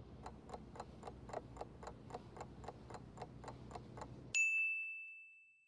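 Countdown clock sound effect ticking at about four ticks a second, then a single bright ding a little over four seconds in that rings out and fades over about a second, marking the end of the quiz timer.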